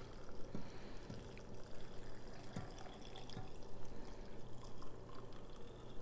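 Hot pickling brine pouring from a small saucepan into a glass mason jar of sliced banana peppers: a quiet, steady trickle with a few small drips.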